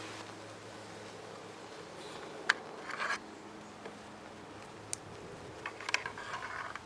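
Scattered sharp clicks and brief rattling of small plastic and metal parts being handled and pressed into an FN PS90's polymer body during reassembly, over a faint steady hum.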